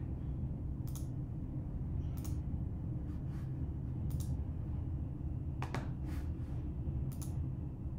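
About six scattered sharp clicks of a computer mouse as the colour picker is worked, over a steady low hum of room and computer noise.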